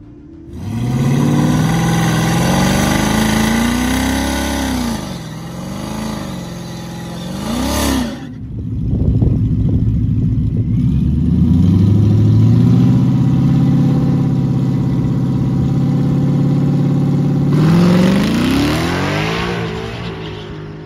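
Drag-race car engines: a V8 revving up and down, then after a sudden cut a Ford Mustang's V8 held at a steady high rev on the starting line before launching at full throttle near the end, its pitch climbing fast as it pulls away.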